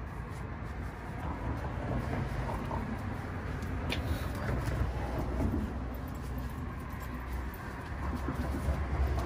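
Light scraping and a sharp click of a hand deburring tool working the cut end of a copper refrigerant pipe, over a steady low rumble.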